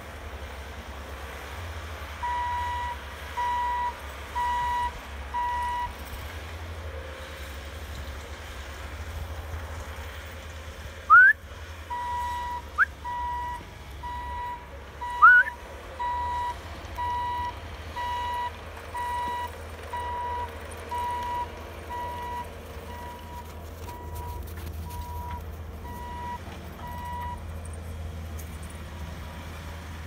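Diesel engines of a compact track loader and a mini excavator running low and steady, with a reversing alarm beeping about once a second, from about two to six seconds in and again from about twelve to twenty-seven seconds in. Three short, loud rising squeaks come between about eleven and fifteen seconds in.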